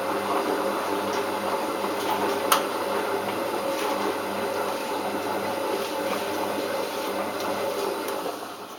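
Balay T-8295 front-loading washing machine running near the end of its programme 7: a steady motor hum with several held tones and a washing noise, one sharp click about two and a half seconds in, and the machine dying down near the end.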